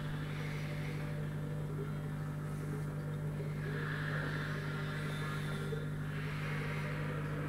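Aquarium equipment running with a steady low hum under a faint, shifting hiss.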